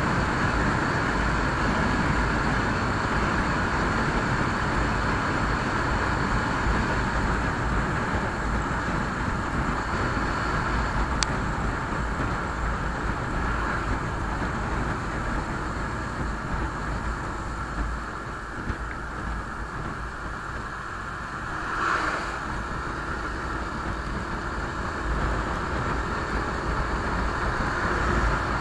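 Bajaj Pulsar motorcycle cruising at around 60–70 km/h: engine and road noise under a steady rush of wind on an action camera's microphone. A brief louder swell comes about three-quarters of the way through.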